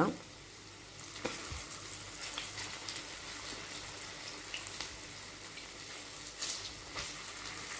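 Hot oil sizzling and crackling steadily as grated-potato balls deep-fry in a pan.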